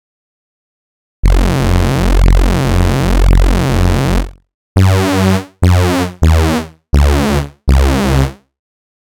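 Vectra software synthesizer playing a thick unison-stacked patch: a note held for about three seconds starting about a second in, then five short stabs in a row.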